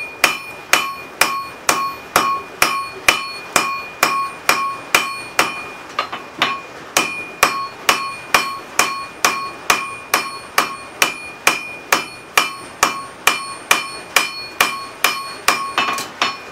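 Hand hammer striking hot railroad-spike steel on an anvil in steady heavy blows, about two and a half a second, each leaving a short metallic ring. The blows are drawing out and tapering the tomahawk blade.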